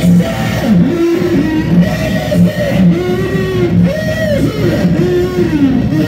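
Loud live experimental music: amplified tones that glide up and down in pitch in long arcs, over a low note that pulses on and off.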